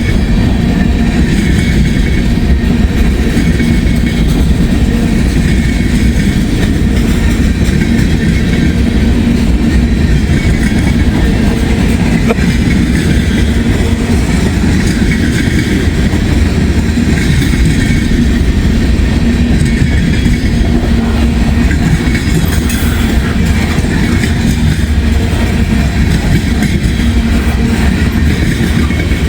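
Long freight train rolling past at close range: a loud, steady rumble of its cars' wheels on the rails.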